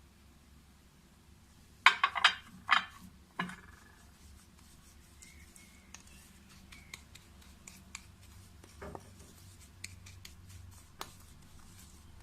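A spoon clinking and scraping against a small dish while stirring ground cumin into olive oil into a paste. There are a few sharp clinks about two seconds in, then quieter scraping and occasional light ticks.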